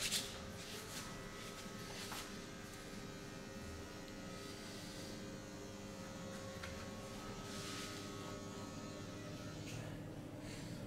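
Steady electric buzz of a small motor, with a sharp click at the start and a couple of faint clicks later.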